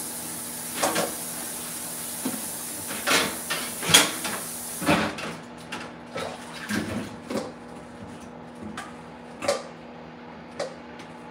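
Running kitchen tap hissing for about the first five seconds, then cutting off abruptly. Dishes and a pot knock and clatter throughout, several sharp clinks at irregular intervals.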